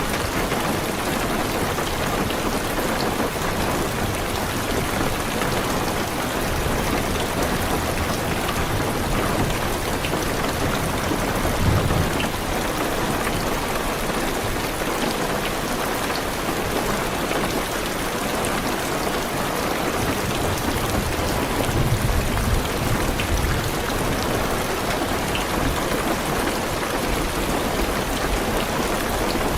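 Heavy rain on a car's roof and windows, a steady hiss, with low rolls of thunder twice, near the middle and again later.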